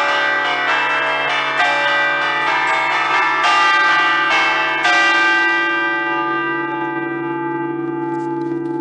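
Five-bell Ambrosian peal tuned in D (bronze bells cast by Giorgio Pruneri in 1875) chimed by hand with cords pulling the clappers against the hanging bells, playing a fast festive allegrezza of clapper strikes. The strikes stop about five seconds in, and the bells ring on, their low hum holding while the higher notes die away.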